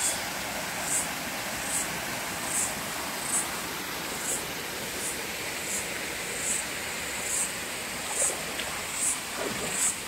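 Creek water flowing and splashing steadily, with a short, high-pitched chirp repeating over it about every 0.8 s.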